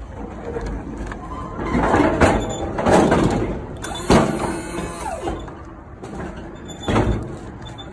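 Clattering and rolling noise of offloading gear, stacked plastic delivery crates and an electric pallet jack, moving over a truck trailer's floor, with a sharp knock about four seconds in and a heavy thump near the end.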